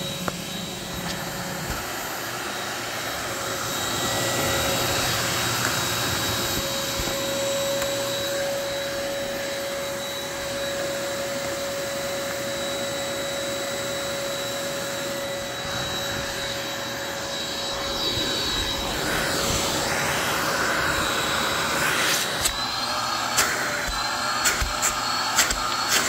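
Electrolux upright vacuum cleaner running steadily, its motor giving a constant whine. In the last few seconds a handful of sharp clicks and knocks sound over it as the machine is handled, and the whine rises slightly.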